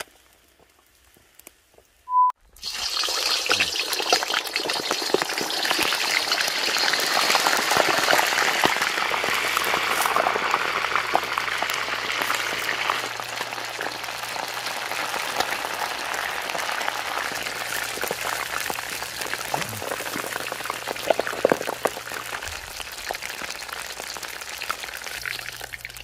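A short beep about two seconds in, then frogs deep-frying in a wok of hot oil: a loud, dense crackling sizzle that starts suddenly and eases somewhat after about ten seconds.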